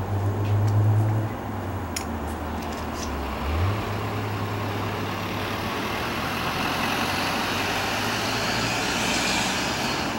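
Tobu 8000 series electric train standing at the platform, its on-board equipment giving a low steady hum that steps up slightly in pitch a few seconds in, with a broad hiss swelling toward the end.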